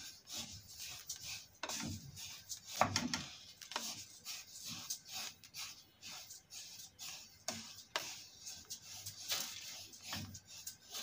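Wooden spatula stirring toasted sesame seeds in a stainless steel pot: irregular scraping and rustling strokes as the seeds are turned, with a few sharper scrapes against the pot.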